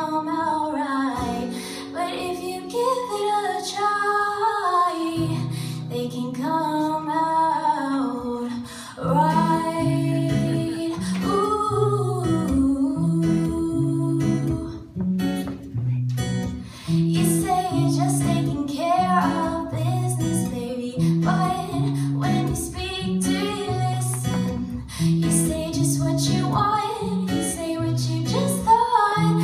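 Live acoustic song: a woman singing over strummed and picked acoustic guitar, with a steady repeating pattern of low guitar notes underneath.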